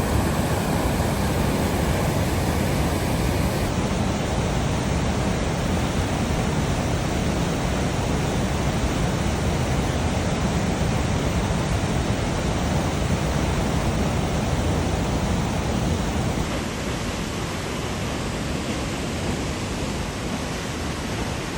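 Waterfall rushing close by: a steady, loud wash of falling water, a little quieter after about sixteen seconds.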